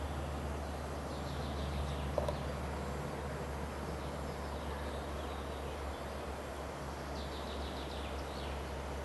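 Steady low outdoor rumble with a small bird calling twice in quick runs of high repeated notes, about a second and a half in and again near the end. A short tap comes just after two seconds.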